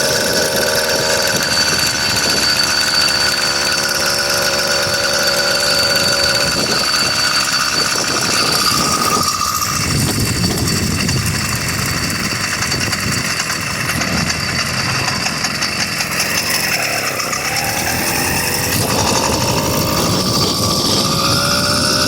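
100cc two-stroke engine of a motorized bicycle running under way. Its pitch drops off about nine seconds in, then climbs steadily near the end as it revs back up.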